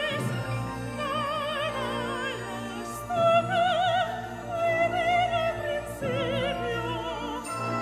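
Slow orchestral ballet music: a lyrical melody with wide vibrato over sustained low notes.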